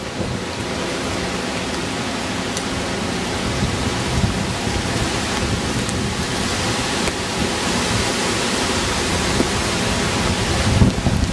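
Hurricane wind and heavy rain: a loud, steady rush of noise with no breaks. A stronger low gust swells briefly near the end.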